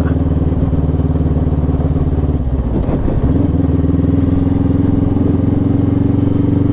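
Macbor motorcycle engine running at low speed on a dirt track. The engine note shifts about three seconds in, then holds steady.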